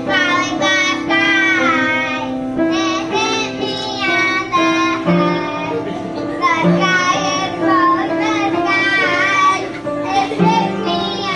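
A child singing a song in phrases, accompanied by piano chords held under the voice.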